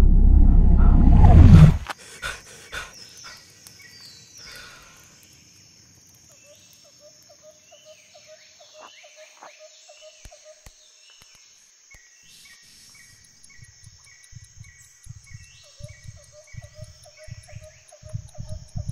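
A loud low rumble cuts off abruptly near two seconds in, giving way to wild-animal ambience: a steady high insect drone, rows of repeated short chirping calls and scattered falling bird-like chirps. Soft low thumps start a few seconds before the end and come at an uneven beat.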